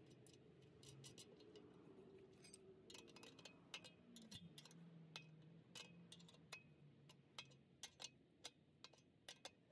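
Faint clicking of a ratcheting wrench as a nut is run down a threaded stud, the clicks coming more regularly, about two or three a second, in the second half.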